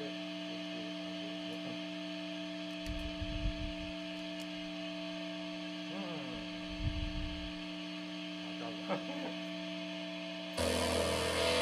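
Steady electrical hum from a guitar amplifier and effects rig, with a few faint low knocks as the gear is handled. About ten seconds in, electric guitar music from the rig starts abruptly.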